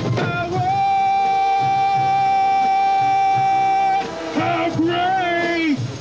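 Marching band playing: a long held high note sustained from about half a second in to about four seconds, then shorter notes that swoop up and down in pitch.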